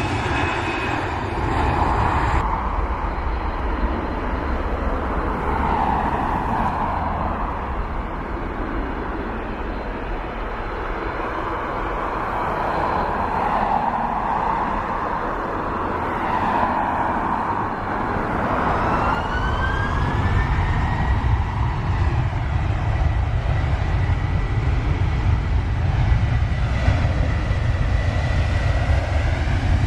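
Boeing 737-800 jet engines running with a steady low rumble; about two-thirds of the way in, a whine rises in pitch and then holds steady as the engines spool up.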